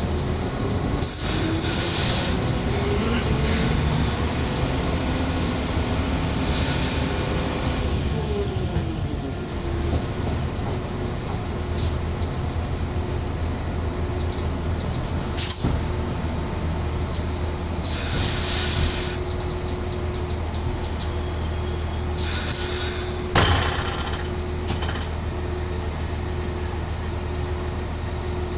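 Passenger train running on rails, heard from aboard: a steady rumble with a whine that rises and falls in the first several seconds, then a few sharp clacks and brief wheel squeals as the train slows to a stop.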